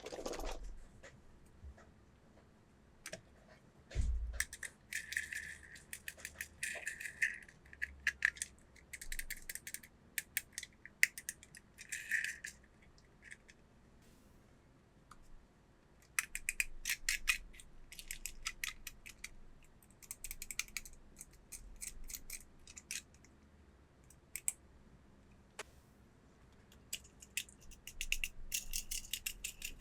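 Plastic toy packaging and pieces being handled: irregular bursts of crackling and rattling with sharp clicks, and a dull thump about four seconds in.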